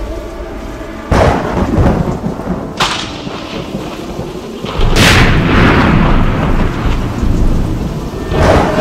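Thunder cracking and rumbling over heavy rain. There are three sudden claps, about one, three and five seconds in, and the last one is the loudest and rolls on.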